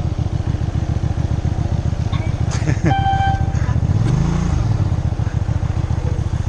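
Motorcycle engine running at low revs with a steady pulse, revved briefly up and back down about four seconds in. About three seconds in, just after a short knock, an electronic test-course beep sounds for under a second: the penalty signal for a course fault.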